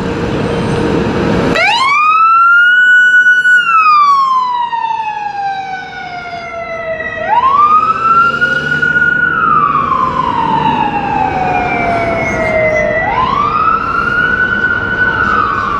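Siren on a fire department battalion chief's SUV, a 2006 Ford Expedition, sounding in wail mode as it responds: three slow cycles, each rising quickly, holding high briefly, then falling slowly, with the first starting about a second and a half in. Before the siren starts, a vehicle engine and a steady hum are heard.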